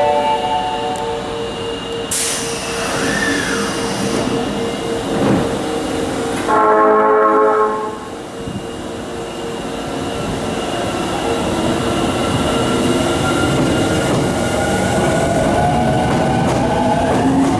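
Osaka Metro Tanimachi Line subway train sounding its horn once, for about a second and a half, some six seconds in. Then its traction motors give a rising whine as it pulls away.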